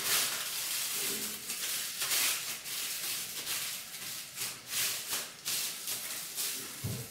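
Aluminium foil crinkling and crackling as hands press and smooth it around a bottle, in an irregular run of crackles.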